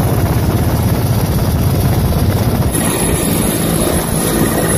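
Helicopter rotors and turbine running, a loud fast steady throbbing. About two and a half seconds in the sound changes with the shot to a helicopter arriving low over the highway strip, and a thin high whine joins the rotor beat.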